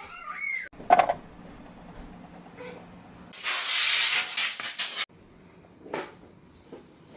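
A loud burst of hissing spray lasting about two seconds and cutting off suddenly, with a sharp knock about a second before it.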